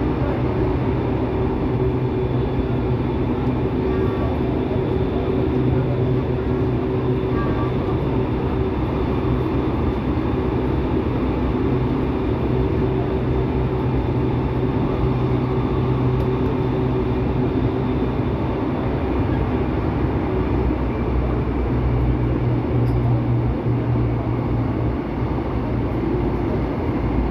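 Line 8 subway train running, heard from inside the car: a steady rumble of wheels on rails with a low, even hum from the drive.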